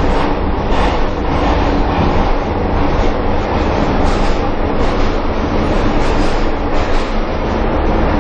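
Pyongyang Metro train running at speed, a steady loud rumble of wheels on rails heard from inside the carriage, with faint clicks about once a second.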